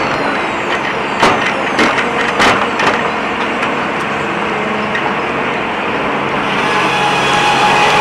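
Sawmill carriage and head rig running steadily, with several sharp knocks in the first three seconds. Near the end, the circular head saw starts into a squared log, and the noise rises.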